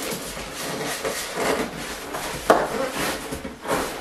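A large cardboard shipping box being handled and a side flap pulled open: cardboard rubbing and scraping, with a sharp knock about two and a half seconds in.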